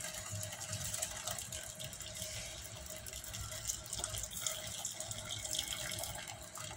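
Cloudy fish stock poured in a thin stream from a frying pan into a stainless steel pot of soup broth, trickling and splashing steadily.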